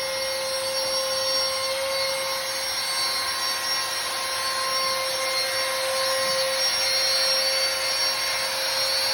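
Home-built CNC router's spindle running steadily while it cuts aluminium composite panel: a constant whine over a hiss of cutting.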